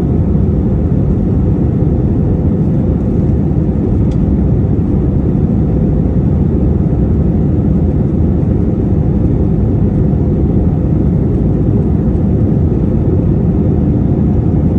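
Steady cabin noise of an Airbus A321-231 in its climb, heard from a seat inside the cabin. Its IAE V2500 turbofans and the airflow make a constant low drone that does not change.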